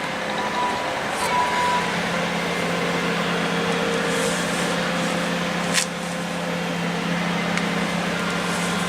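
Steady low mechanical hum under an even rushing noise, with one sharp click a little before six seconds in.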